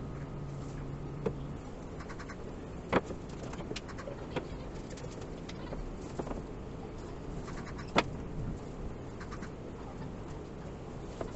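A paintbrush and stained wooden pieces handled on a workbench: a few sharp knocks and taps over low background noise, the loudest about three and eight seconds in. A low hum stops about a second and a half in.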